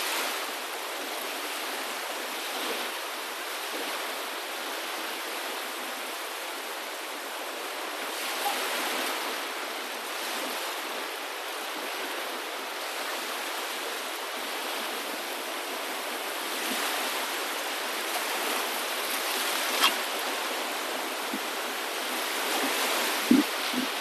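Steady rush of moving water, swelling and easing slowly every few seconds. A single sharp click comes about four seconds before the end, and two short knocks near the end.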